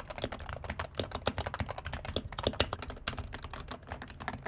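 Fast typing on a Wooting 60HE mini keyboard with Gateron Lekker magnetic linear switches: a quick, uneven run of key clacks.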